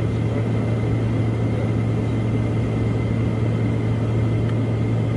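Aircraft heard from inside the cockpit in flight: a steady, constant low engine hum under a wash of airflow noise, with a faint steady high whine.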